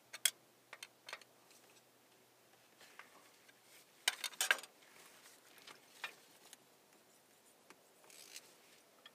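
Faint clicks and metal scraping of hand tools working on the valve rocker arm adjusters of a Cummins 5.9 12-valve diesel as the valve lash is set. Scattered single clicks, with a short cluster of scraping clicks about four seconds in.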